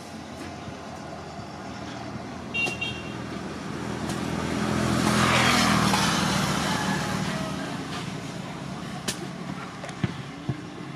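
A motorbike passing on the road, its engine and tyre noise building to a peak about halfway through and then fading away.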